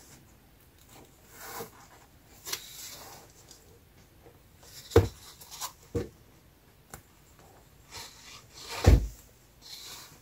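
A hardcover sketchbook being opened and handled: paper rustling, and several short, dull thumps as the cover and pages are laid flat, the loudest about five and nine seconds in.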